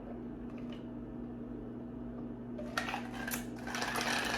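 Steady low room hum; about two and a half seconds in, a crackly rustling and scraping starts and grows louder, like something being handled close to the microphone.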